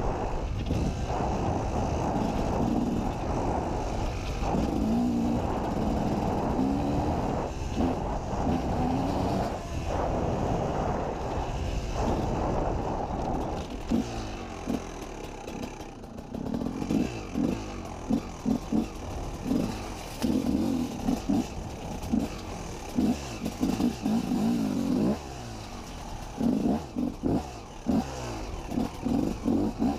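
KTM 250 EXC two-stroke enduro motorcycle engine running hard and steady at first, then from about halfway cut into short throttle bursts with revs rising and falling over and over.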